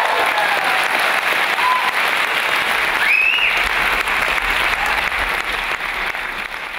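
Audience applauding, with one high call rising in pitch about three seconds in; the applause tapers off near the end.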